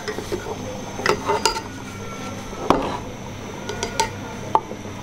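Steel ladle stirring and scooping in a pot of thick beef paya gravy, clinking sharply against the pot about five times.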